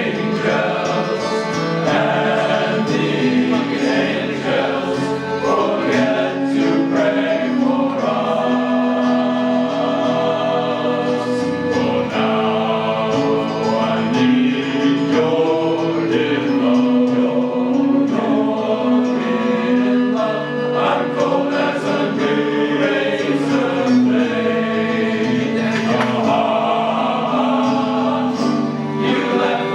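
A choir singing, several voices holding and moving through sustained chords together.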